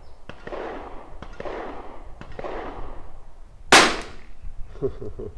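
A single .22 LR rimfire rifle shot from a Tikka T1x: one sharp crack about two-thirds of the way in, with a brief ring after it.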